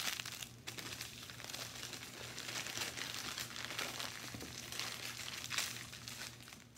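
Small plastic bags crinkling and rustling as diamond-painting drills are put back into them and the packets are handled, with small clicks through it. It fades near the end.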